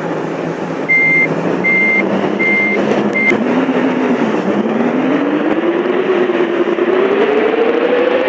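A vehicle's beeper sounds four short, evenly spaced beeps at one steady pitch over a large diesel vehicle's running engine, likely a bus's. After the beeps stop, the engine dips and then climbs steadily in pitch as it accelerates.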